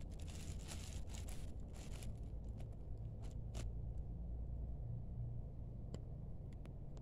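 Black plastic courier bag crinkling and rustling as a hand handles it, mostly in the first two seconds, followed by a few light ticks, over a steady low hum.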